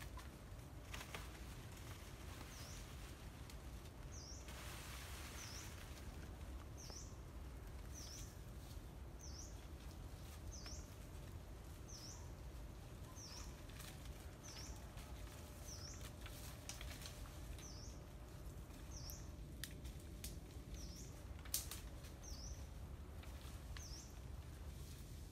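A bird repeating one short, high chirp that dips and rises in pitch, about once a second, over a faint steady low rumble. There is a brief rustle early on, a few light clicks, and one sharp knock about three-quarters of the way through.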